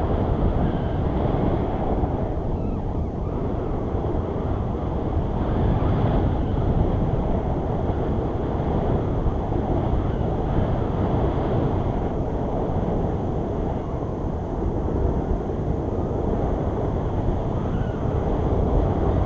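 Steady wind rushing and buffeting over the microphone of a camera held out during a tandem paragliding flight.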